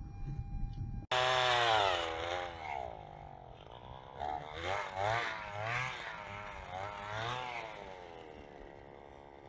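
A small engine revving up and down over and over, starting abruptly about a second in and fading toward the end.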